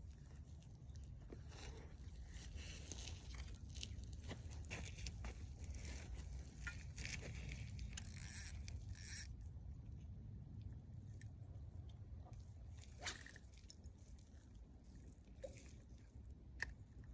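Scraping, rustling and clicking handling noises close to the microphone, busiest over the first ten seconds, then a few isolated sharp clicks.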